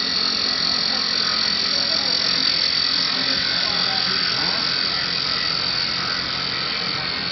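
Automatic CNC wood-turning lathe cutting a wooden bowl: a steady high whine over a continuous hiss of the cut.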